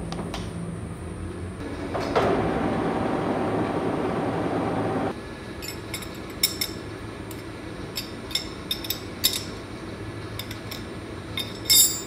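A loud, steady whir with a hum for about three seconds that cuts off suddenly, followed by scattered sharp metal clinks and taps of a steel wrench being handled on the lathe's carriage and compound rest, the loudest clink near the end.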